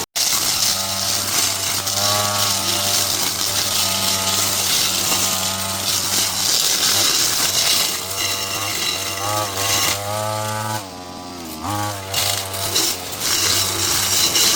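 Small engine-driven power tool running hard, its engine note rising and falling with the throttle and easing off briefly about eleven seconds in.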